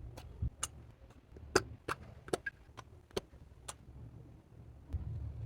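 Clear slime being squished and worked by hand, giving about ten sharp, irregular pops and clicks as air pockets burst, over a low rumble of handling.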